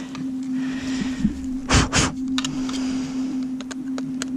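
Airsoft magazines and rifle being handled: scattered clicks and knocks, with two loud thumps close together about halfway, over a steady hum.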